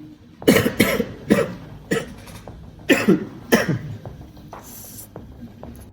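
A person coughing in a fit of about six coughs, in two bouts, the cough of a chesty, phlegmy throat.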